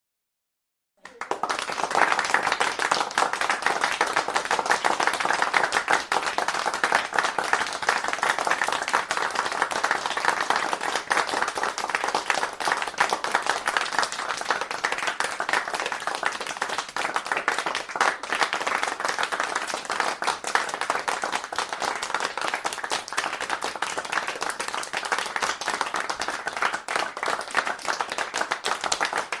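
Applause from a crowd of people clapping, a dense steady patter of many hands. It starts about a second in and keeps up evenly.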